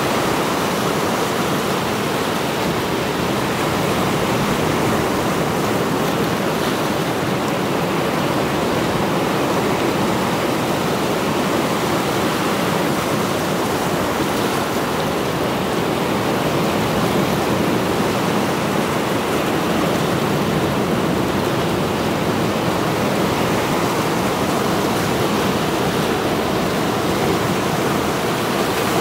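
Mediterranean surf breaking and washing over a rocky shore: a continuous, steady rush of churning water and foam, with no single crash standing out.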